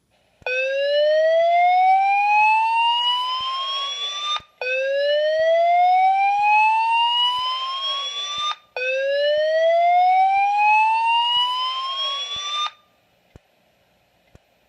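Gentex SSPK24WLPR fire alarm speaker sounding a slow whoop evacuation tone: three loud rising sweeps, each about four seconds long with a brief break between. It is the fire-report alert signal that comes before the voice evacuation message.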